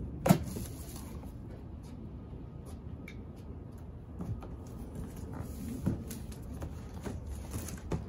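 A cardboard shipping box being handled and opened, with scattered rustles and light taps. A sharp knock comes just after the start.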